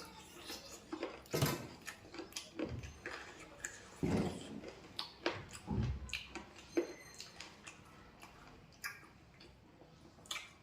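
Close-up eating sounds: a person chewing chicken with irregular wet mouth smacks and clicks. The strongest smacks come about 1.5, 4 and 6 seconds in.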